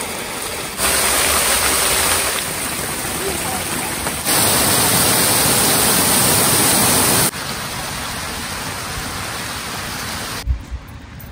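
Park fountains splashing: a bubbling water jet and streams of water pouring into a pool make a steady rushing splash. It jumps louder or softer suddenly several times, and turns quieter with a few low thumps near the end.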